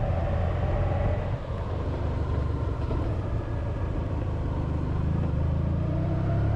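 Honda VFR1200X Crosstourer's V4 engine running on the move, heard from the windshield together with wind noise. The engine rumble builds and its pitch rises near the end as the bike picks up speed.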